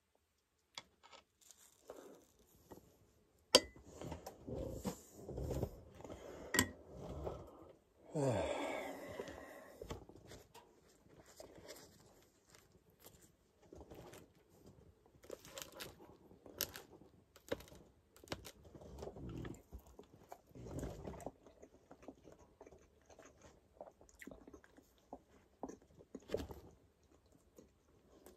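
Close-up eating sounds: chewing and biting into a sandwich, with scattered small clicks and a sharp click a few seconds in. About eight seconds in comes a louder noisy sound whose pitch falls.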